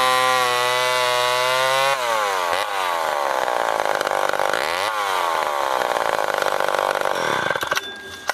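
Chainsaw engine running at a steady high pitch. Its pitch dips and recovers about two seconds in and again about five seconds in, then it winds down near the end.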